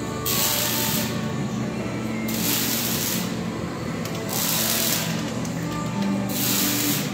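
Background music with held tones and a hiss that swells and drops away roughly every two seconds.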